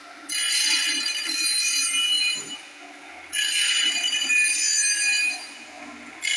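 Automatic band-saw blade sharpener grinding the saw teeth: the abrasive wheel screeches against the steel blade with a ringing metallic tone. There are two grinding passes of about two seconds each with quieter gaps between them, and a third pass starts at the very end.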